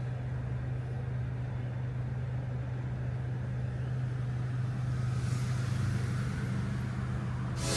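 Vehicle engine running with a steady low hum, with a rise in hiss for a couple of seconds about five seconds in.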